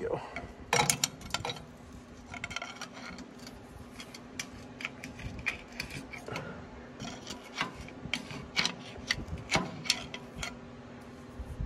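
Irregular metal clinks, taps and scraping of hand tools working on a steel shaft and bearing parts, some strikes ringing briefly, over a faint steady hum.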